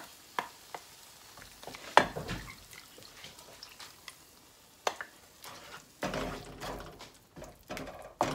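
A wooden spoon scraping ground coconut paste out of a steel mixer-grinder jar into a non-stick frying pan, with a few sharp knocks of spoon and jar, the loudest about two seconds in. From about six seconds in, the spoon scrapes and stirs the thick curry paste around the pan.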